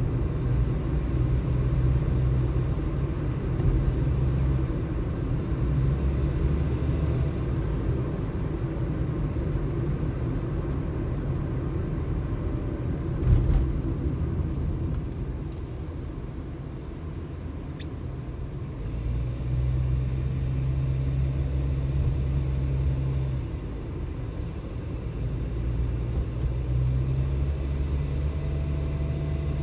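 Engine and road noise inside a moving car's cabin: a steady low rumble that eases off for a few seconds in the middle, with a single sharp knock about thirteen seconds in.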